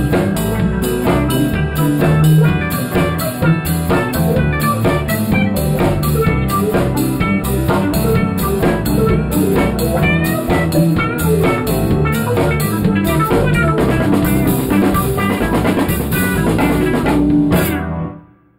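Live band playing with electric guitar, bass guitar and a drum kit keeping an even cymbal beat, and a woman singing into a microphone. The music drops away quickly near the end.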